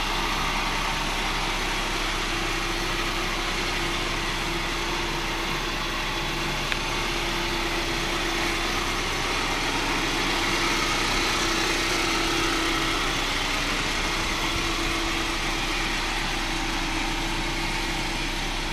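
A 1996–2000 Honda Civic's four-cylinder engine idling steadily.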